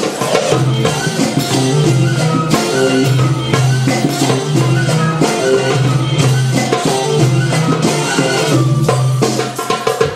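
Middle Eastern belly-dance music: a melody over a held low bass line, with a hand drum beating a steady rhythm.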